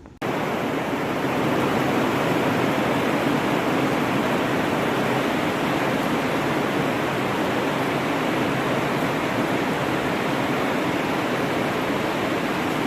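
Steady rushing noise that cuts in abruptly just after the start and holds even throughout.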